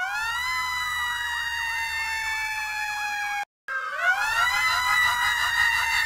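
Emergency vehicle siren: a wail that rises at the start and then slowly falls, with a fast warble over it, cut off suddenly after about three and a half seconds. After a brief silence the siren starts again, rising, in a digitally altered version.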